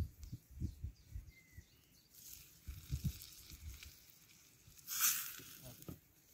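Outdoor ambience of wind buffeting the microphone in irregular low gusts, with a short hiss about five seconds in.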